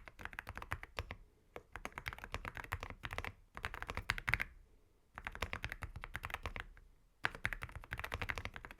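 Typing on an AULA F75 mechanical keyboard fitted with AKKO Rosewood switches: fast runs of keystrokes broken by short pauses, fairly quiet with a little thock.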